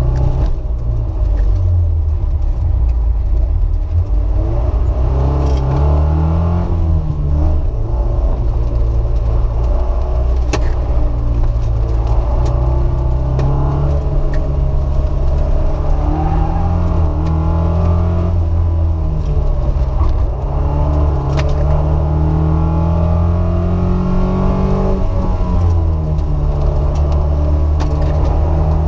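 Alfa Romeo Alfetta's four-cylinder engine, heard from inside the cabin while it is driven hard through an autocross course. The revs climb and fall back several times with the gear changes and corners, and there are a few sharp clicks.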